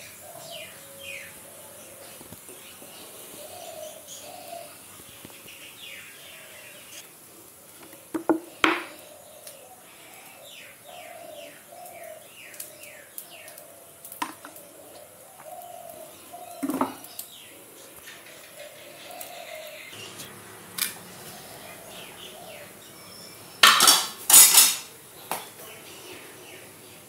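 Steel pots, bowls and utensils clanking against each other a few times, loudest in a pair of clatters near the end, over steady chirping of birds.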